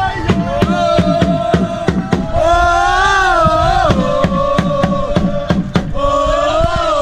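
Football supporters singing a chant in unison, the long notes sliding up and down, over a drum beaten steadily about three times a second.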